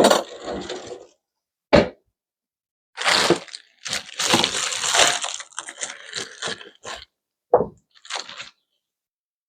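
Carrots being gathered and handled: a few sharp knocks and a stretch of crunchy rustling.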